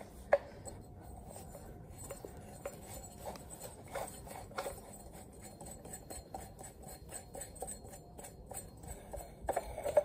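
Faint, scattered clicks and light scrapes of metal and ceramic parts being handled on a condensate pump's motor shaft, the impeller and shaft seal being worked loose, with one sharper click right at the start and a few more near the end.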